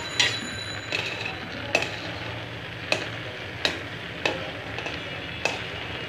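A metal spoon stirring boiling rice in an aluminium pot, clinking against the pot about seven times, over the steady bubbling of the boiling water.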